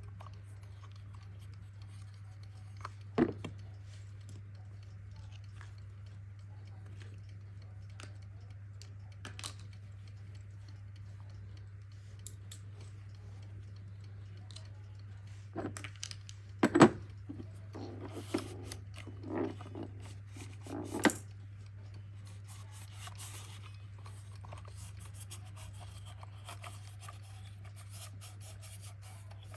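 Small clicks and knocks of a mechanical two-bell alarm clock being handled, over a steady low hum. Several louder knocks come past the middle, then a run of quick fine clicks near the end.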